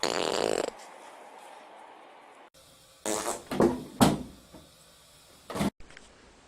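Farts: a loud raspy one at the start lasting under a second, then several shorter ones with some pitch about three to four seconds in, and a brief burst near the end.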